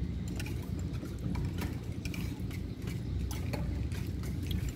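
Scattered light clicks of cutlery against plates over a steady low rumble.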